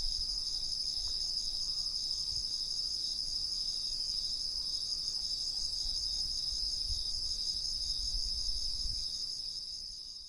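A singing insect, cricket-like, giving one unbroken high trill with a fast, even pulse. It fades out near the end.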